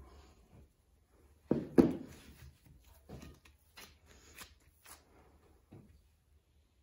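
Soft lard shortcrust dough being pressed and patted into a ball by hand on a floured wooden worktop: two heavy thuds about one and a half seconds in, then lighter separate pats and taps.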